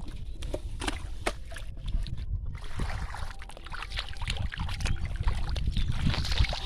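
Water splashing and sloshing as hands work through it to catch fish. A few sharp clicks come in the first two seconds, the splashing thickens from about halfway, and a steady low rumble runs underneath.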